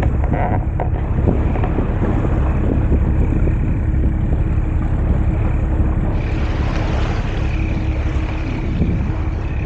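Wind buffeting the microphone aboard a schooner under way: a loud, steady low rumble with a faint steady hum underneath. A brighter hiss joins about six seconds in.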